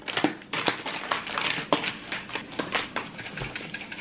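A run of irregular clicks and taps, about two or three a second, from seasoning containers and a plastic packet being handled at a table.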